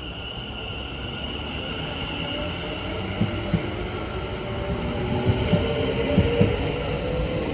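A West Midlands Railway Class 730 electric multiple unit pulls away. Its motor whine slowly rises in pitch as it speeds up, over a steady high tone. Irregular knocks come from the wheels on the track, more often after about three seconds.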